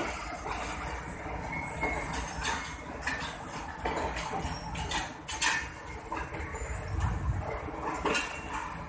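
Passenger coaches of a departing train rolling past on the rails, with the wheels clicking and clacking irregularly over a low rumble.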